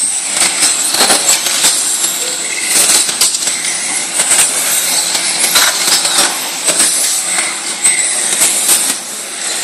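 Storm wind and rain noise: a loud, steady rushing hiss with many irregular sharp taps and clicks through it.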